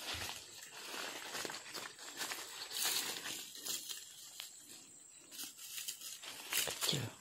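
Dry leaf litter and salak palm fronds crackling and rustling in irregular crackles as a person steps through the undergrowth and reaches into the base of a salak clump.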